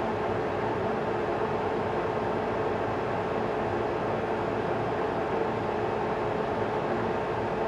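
Steady rushing noise with a faint, even hum, unchanging throughout, with no distinct clicks or knocks from the clamp being handled.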